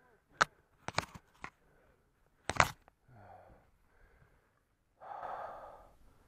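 A handful of sharp clicks and knocks close to the microphone in the first few seconds, followed by a few soft breaths.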